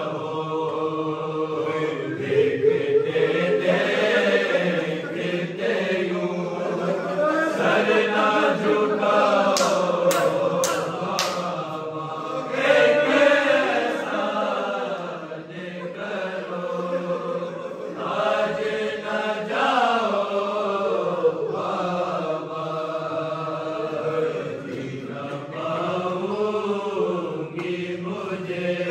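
A group of men chanting a noha, an unaccompanied Shia lament for the martyrdom of Imam Ali, in long, drawn-out sung lines.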